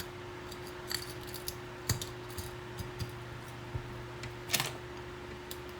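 Scattered light clicks and taps of a smartphone and small repair tools being handled on a bench, the sharpest about two seconds in and a short cluster around four and a half seconds, over a steady electrical hum.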